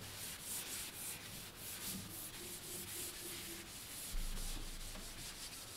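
Blackboard duster wiping chalk off a chalkboard in repeated, quiet rubbing strokes.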